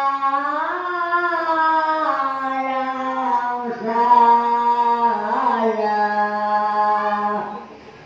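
Voices singing a slow devotional chant in long, drawn-out held notes that step down in pitch; the singing breaks off briefly near the end.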